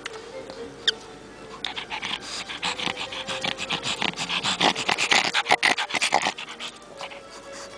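A Pekingese dog panting rapidly close to the microphone, starting about a second and a half in and stopping near the end.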